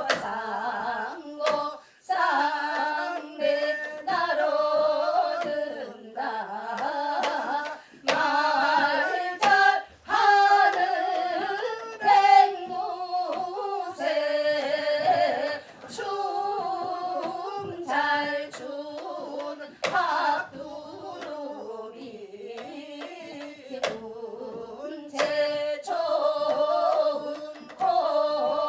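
Korean Seodo sori folk singing: a solo voice in long phrases with a wavering, shaking pitch, broken by short breaths, over sharp drum strokes.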